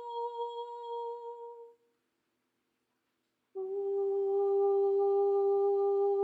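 A steady, held musical tone fades out, followed by a gap of silence of about two seconds. Then a lower steady tone starts abruptly and holds.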